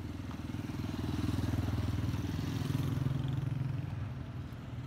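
Motorcycle engine running close by, growing louder about a second in and easing off near the end as it passes.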